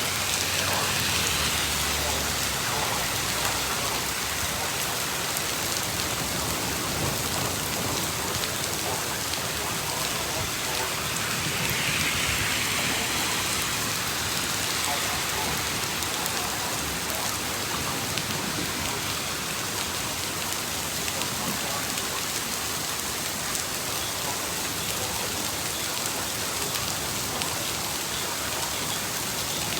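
Heavy rain pouring down on outdoor surfaces: a steady, dense hiss with scattered drop ticks, swelling briefly about twelve seconds in.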